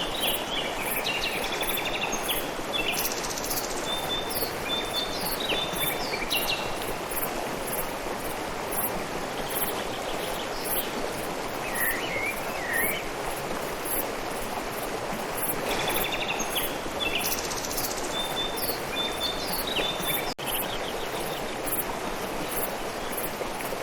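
Small birds chirping in quick bursts, with a brief gliding call in between, over a steady outdoor background hiss. Faint high-pitched pulses repeat at about two a second throughout.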